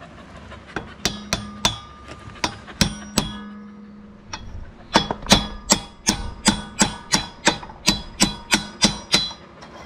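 Hammer blows on a steel pipe used as a driver, tapping a chilled sealed ball bearing down onto a concrete mixer's drum shaft; each blow rings metallically. A few blows come about a second in, then a pause, then a steady run of about three blows a second for some four seconds.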